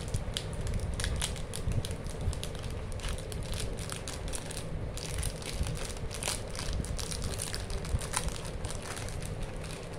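A chocolate bar's plastic wrapper crinkling as it is torn open by hand, then the inner foil being peeled back, in a run of irregular crackles.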